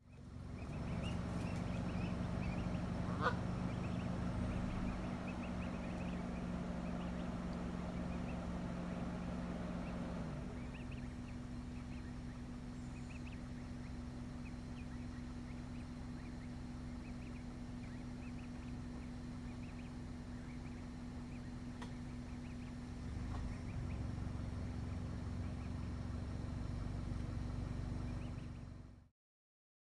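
Canada geese calling, with short high calls scattered throughout and one sharper call about three seconds in, over a steady low hum that drops at about ten seconds and grows louder again after about twenty-three seconds.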